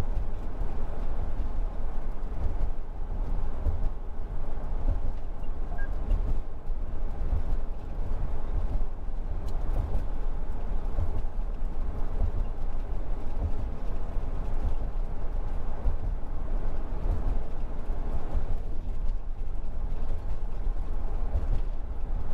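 Steady road noise from inside a camper van's cab: tyre rumble and engine hum while cruising at about 45 mph on smooth pavement rather than the bridge's steel grating.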